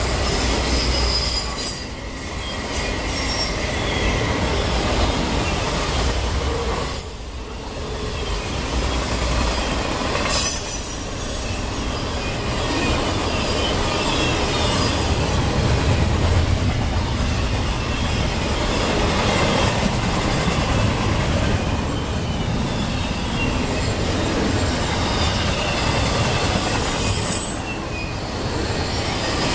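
Freight train of autorack and double-stack container cars rolling past at speed: a steady heavy rumble and clatter of wheels on rail, with high-pitched wheel squeal rising and fading several times.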